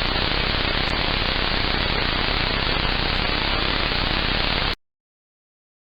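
Steady radio static hiss, as from a weather radio receiving no broadcast, cutting off suddenly near the end into silence.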